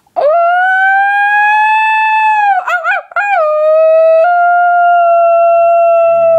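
A person imitating a dog's howl: one long, loud held 'ooo' note that rises a little, warbles in the middle, then holds steady slightly lower until it stops.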